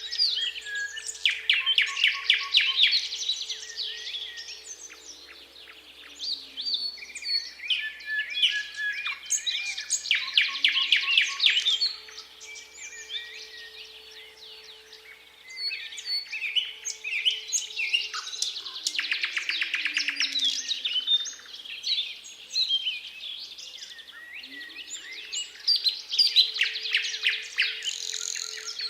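Thrush nightingale singing: loud phrases of rapid repeated clicking notes and trills, each a few seconds long, separated by short pauses. A faint steady low hum runs underneath.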